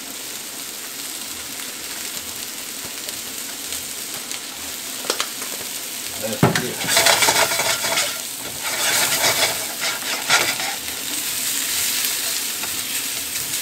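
Sliced mushrooms sizzling in oil in a nonstick frying pan, a steady sizzle at first. About halfway through, tongs start turning them over, with scraping and clicking against the pan, and the sizzle gets louder.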